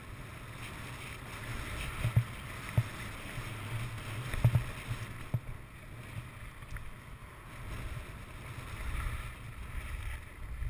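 Skis sliding and scraping over packed snow, with wind rumbling on the camera's microphone. A few sharp knocks come between about two and five seconds in.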